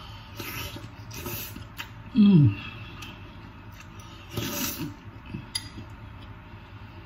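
A person eating with a spoon: chewing and mouth noises, with a short, loud hum of enjoyment falling in pitch about two seconds in, and a couple of light clicks.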